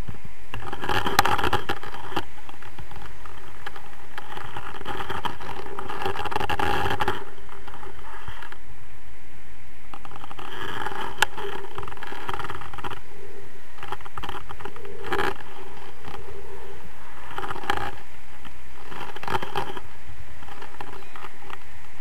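Airflow rushing and buffeting over the camera's microphone in flight under a tandem paraglider, swelling and easing in gusts, with a couple of sharp clicks.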